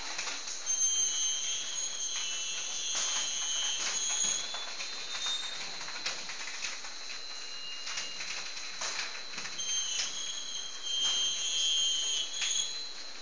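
Rock wool sandwich panel roll forming line running: a steady high whine over a hiss of machinery, with high metallic squeals that come and go twice and scattered knocks.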